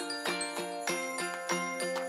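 Background music: a bright, bell-like melody of quick, evenly paced notes, about three a second.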